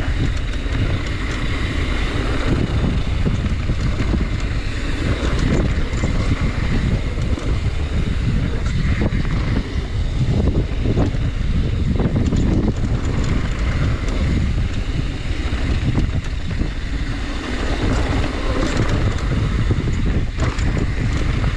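Wind buffeting the microphone, a steady, gusty low rumble, with a few faint clicks.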